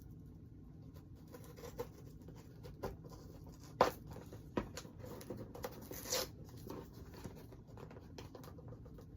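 Hands picking and scratching at the packing tape on a heavily taped package, with faint rustling and a few short tearing or scraping sounds, the clearest about four seconds in and just after six seconds.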